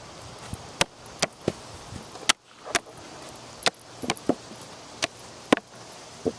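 Sharp slaps of hands closing on a plastic flying disc: about a dozen catches in quick, uneven succession, roughly two a second.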